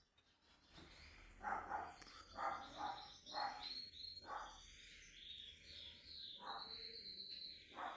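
Short chirping calls from a small animal, repeated roughly once a second, with a high thin whistling tone held over them through the middle.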